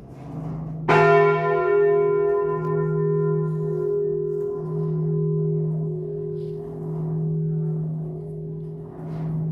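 Swinging church bells of the Dom tower, heard close up inside the bell chamber: a deep hum swells and fades about every second and a half, and one bell strikes loudly about a second in, its clang ringing out for several seconds.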